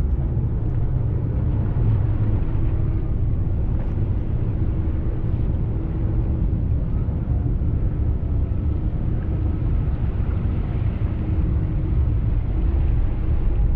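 Passenger ferry's engine running with a steady low rumble and a faint hum.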